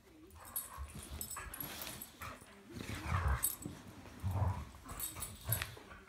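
Two dogs play-fighting up close: irregular bursts of dog vocal noise and scuffling. It is loudest in a few short bursts in the second half.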